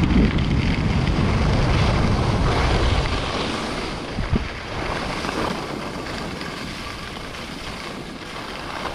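Wind rushing over the microphone and skis hissing on snow during a downhill ski run. The heavy buffeting drops away after about three seconds, leaving a quieter steady hiss.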